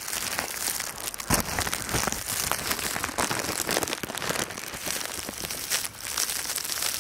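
Footsteps crunching through deep snow, with wind buffeting the microphone, and a louder thump a little over a second in.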